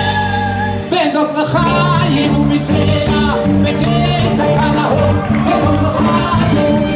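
Live wedding band of saxophone, electric bass, drums and a male singer playing upbeat Jewish dance music. A held chord breaks off about a second in, then the band kicks into a fast, steady beat.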